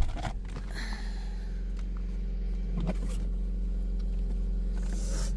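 Car engine idling steadily, heard from inside the cabin as a low, even hum, with a couple of faint knocks or rustles.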